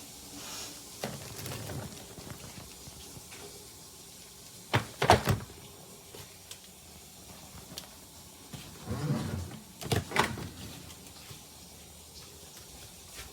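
Hardshell suitcase being handled: a few sharp clunks and knocks in two clusters, about five and ten seconds in, with softer thuds and rubbing between them.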